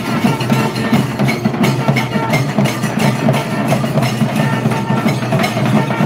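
Temple procession music: drums beaten in a fast, dense rhythm, with long brass horns sounding held notes over them.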